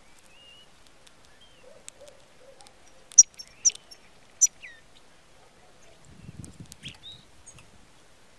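European goldfinch giving short, high call notes: three sharp, loud chirps in quick succession a few seconds in, with fainter chirps scattered around them. A brief low rumble comes near the end.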